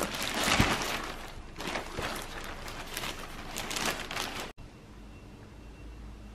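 Thin plastic shopping bag rustling and crinkling as it is handled and packaged items are pulled out of it, cutting off suddenly after about four and a half seconds to faint room hiss.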